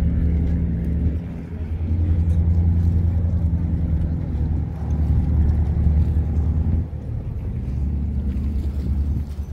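Motorboat engine running with a loud, steady low drone that eases slightly in level a couple of times.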